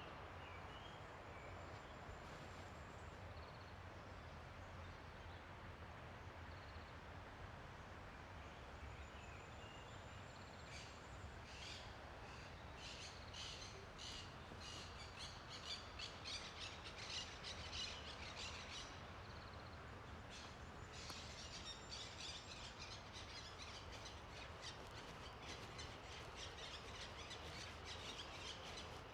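Small birds chirping in quick, chattering runs, starting about a third of the way in and again through the second half, over a faint steady low hum.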